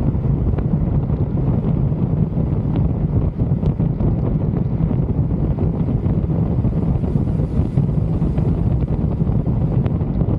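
Wind rushing and buffeting over the microphone of a Triumph Tiger motorcycle on the move, with a steady low hum of the bike underneath.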